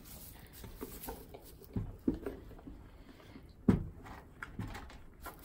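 Nigerian dwarf goats feeding at a plastic feed bin: scattered soft knocks and rustles of muzzles in the bin and hooves in straw bedding, with one sharper knock about three and a half seconds in.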